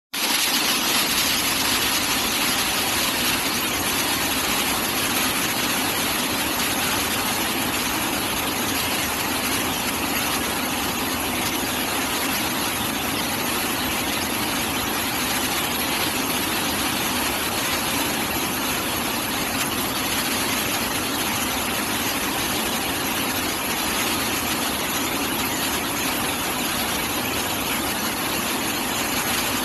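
Down-the-hole (DTH) rock drilling machine running: a steady, even, hiss-like mechanical noise with no pauses.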